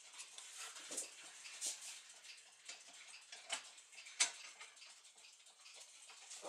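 Brass plate of a Gustav Becker clock movement being handled and seated on its pillars: scattered, irregular light metallic clicks and taps over a faint rustle, the sharpest about four seconds in.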